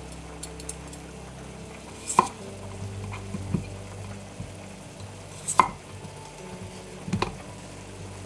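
Kitchen knife cutting potatoes in half on a wooden cutting board: three sharp knocks as the blade goes through and strikes the board, about two, five and a half and seven seconds in.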